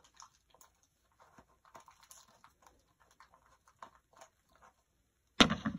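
Faint scattered clicks and rustles of handling, then a loud knock near the end.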